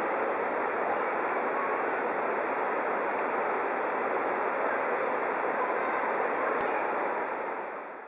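A rocky mountain river rushing over boulders: a steady, even roar of running water that fades out near the end.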